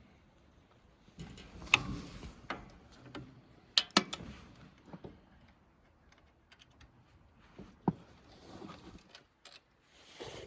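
Scattered sharp clicks and knocks with some rustling, from hand work with tools and metal parts on a small engine; the loudest clicks come about 2, 4 and 8 seconds in.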